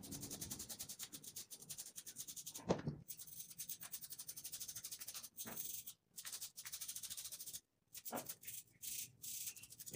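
Small stiff brush scrubbing the inner face of a clipper blade set in rapid strokes, a fast dry scratching, sped up. It breaks off briefly about six and eight seconds in.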